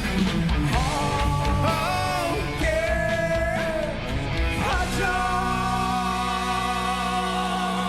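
Live rock band playing: drums and a gliding melodic line over the band, then about five seconds in a long sustained chord rings on as the drumming drops away.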